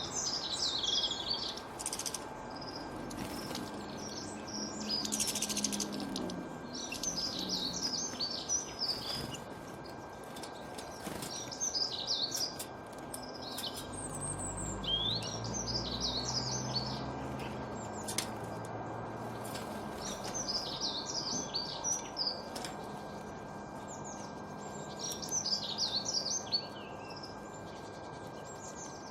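Bullfinch singing in short bursts of quick, high chirping notes, one burst every three to four seconds, over a steady background hum. A low rumble swells and fades near the middle.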